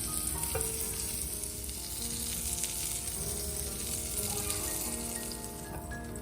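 Food sizzling as it fries in a hot pan, a dense crackling hiss that dies down near the end, with soft background music underneath.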